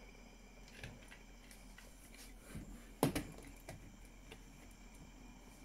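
A few faint clicks and one sharper knock about three seconds in, as a toy police car is set down and moved on wooden toy railway track.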